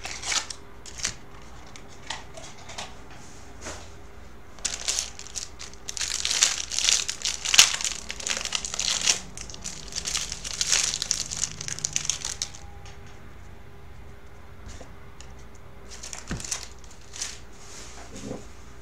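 Foil wrapper of a trading card pack crinkling and tearing as it is opened by hand, a dense crackle for several seconds in the middle, with scattered short taps and rustles before and after.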